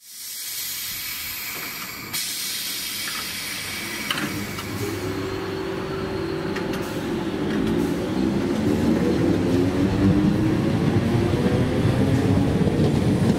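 Great Northern Class 313 electric multiple unit pulling away from the platform, its traction motors whining up in pitch as it gathers speed over a rumble of wheels on rail, growing louder.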